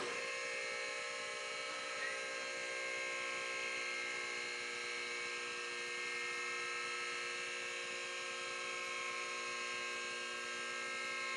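Two-post vehicle lift's electric hydraulic pump motor switching on suddenly and running with a steady, even hum as it raises a pickup truck.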